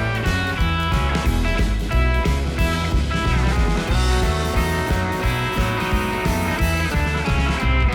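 Background rock music with guitar and a steady bass-heavy beat.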